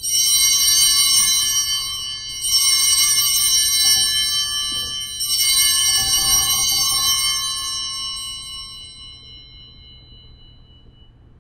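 Altar bells (sanctus bells) shaken three times, about two and a half seconds apart, each jingle left to ring on before fading out near the end. They are rung at the elevation of the chalice during the consecration.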